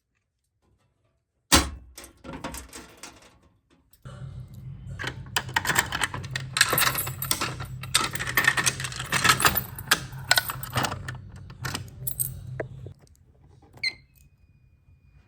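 A sharp knock, then a run of metallic clicking and rattling over a steady low hum that stops near the end. A short high chirp follows.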